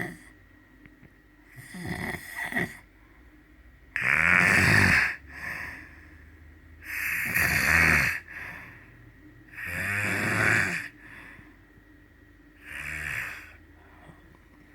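Snoring: about five loud snores, one every two and a half to three seconds, some followed by a short weaker breath.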